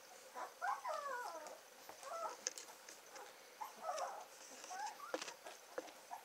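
Two-week-old White Swiss Shepherd puppies whimpering and squeaking in short, high, wavering calls as they push in under their mother to nurse, with a few small clicks in the second half.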